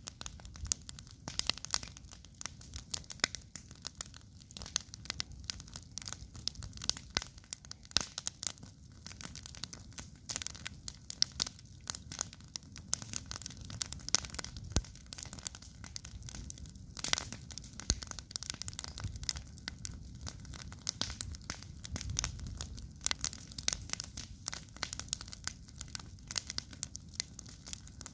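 Wood campfire crackling, with dense, irregular sharp pops and snaps.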